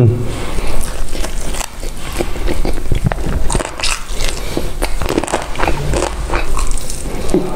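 Close-miked crunchy bites and chewing of fried chicken: irregular crisp cracks of the breaded skin, with soft mouth sounds between them.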